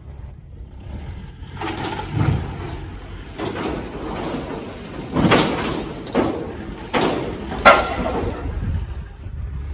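A run of knocks and clatters over a low rumble, with a sharp bang about three-quarters of the way through.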